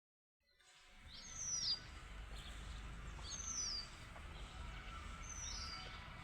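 A bird repeating a short, high chirp that falls in pitch, three times about two seconds apart, over a low steady rumble.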